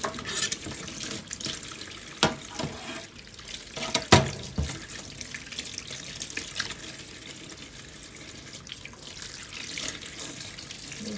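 Kitchen faucet running in a steady stream into a stainless-steel sink while green beans and a potato are washed by hand under it. A few sharp knocks stand out, the loudest about four seconds in.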